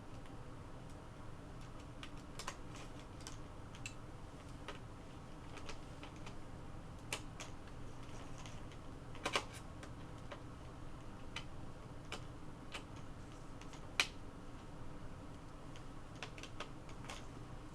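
Scattered light clicks and taps of a small screwdriver and plastic and metal laptop parts being handled during laptop disassembly, with a sharper pair of clicks about nine seconds in and another about fourteen seconds in, over a faint steady hum.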